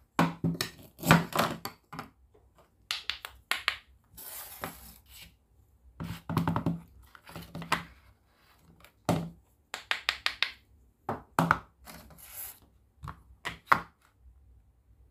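Plastic toy kitchen pieces being handled: a run of short clicks, taps and knocks as a toy knife, a halved toy fruit and a plastic play dough mould press are picked up, set down and pressed shut, with two brief scratchy rustles.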